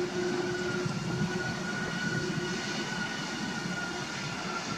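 Jet airliner engines running, a steady rushing noise with a constant high-pitched whine; a lower hum fades out about a second in.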